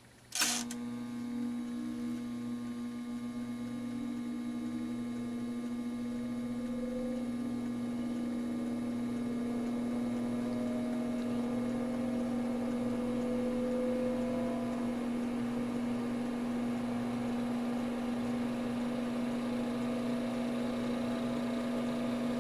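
Two all-metal solder fume extractor fans starting together: a click about half a second in, then their motors hum and whine as they spin up, the pitch gliding slowly upward and the sound growing a little louder before settling into a steady drone.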